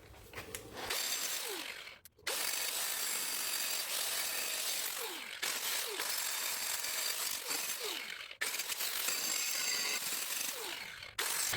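Angle grinder grinding down a weld bead on steel, letting the disc float over the surface to flatten the repair: a steady, high-pitched grinding whine broken by three short breaks.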